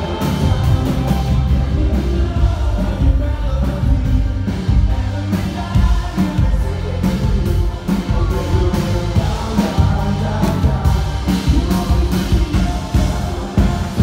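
Live band playing an upbeat pop-rock song, with drums and bass driving a steady beat under a sung vocal line.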